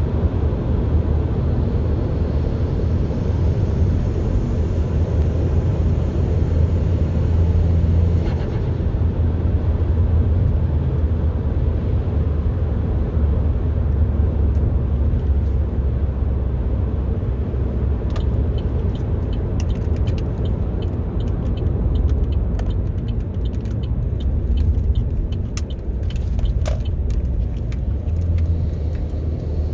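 A 2013 Chevrolet Sonic RS's turbocharged 1.4-litre four-cylinder engine running with a steady low drone. From a little past halfway, a scatter of quick, sharp ticks and chatter comes through, which is the turbo flutter.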